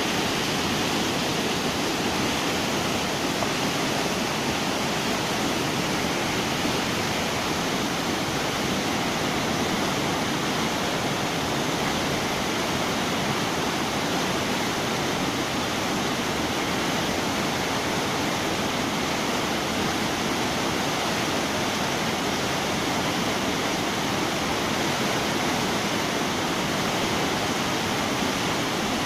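Fast river water rushing over rocks and a gravel bar in white-water rapids, a steady, even noise with no let-up.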